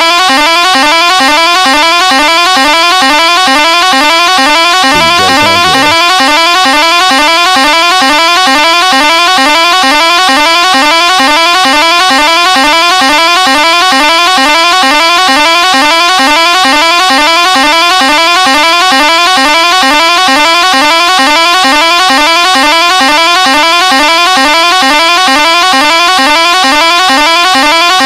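Bus musical pressure horn sounding continuously as a rapidly repeating, evenly spaced rising note, very loud and unbroken. A brief deeper horn note cuts in about five seconds in.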